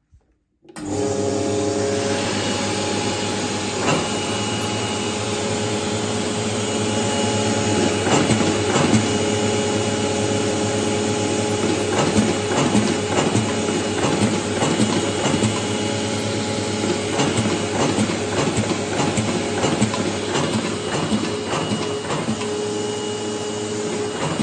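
Bacciottini Pit Stop suction-fed creasing and perforating machine starting up about a second in and running steadily: a hum from its motor and suction feed with frequent irregular clicking as sheets are fed through and creased.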